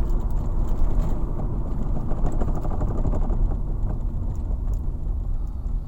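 Cabin noise of a 2006 Toyota Tarago driving with its brakes applied lightly: road rumble with a rapid rattling that is thickest over the first few seconds and then eases. The rattle is a braking fault of unknown cause that shows under light brake pressure.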